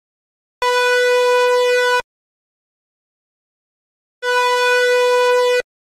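Arturia OP-Xa V software synthesizer playing a bright, buzzy single note, held for about a second and a half, then played again at the same pitch a few seconds later.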